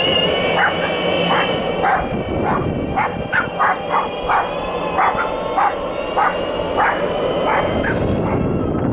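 A small dog barking and yapping over and over, about one and a half barks a second, over a steady high whine.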